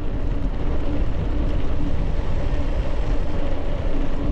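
Wind buffeting the microphone with a steady low rumble while riding a bicycle along a road.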